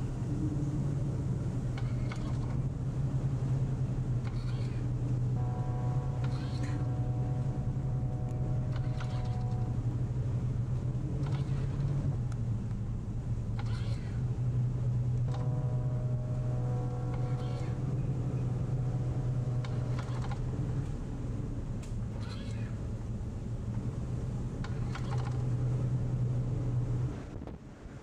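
Steady low hum of a bulk carrier's engine and machinery, heard from on board. Twice a higher whine of several steady tones comes in over it for about four seconds. The hum drops away near the end.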